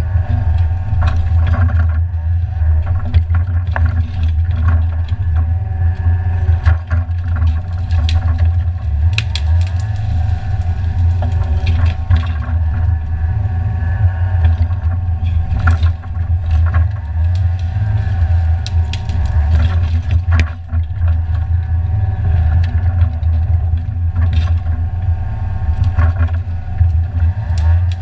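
Excavator's diesel engine running steadily under load as a timber grab on its arm gathers and drops cut branches, with repeated sharp cracks and knocks from snapping brush and the grab.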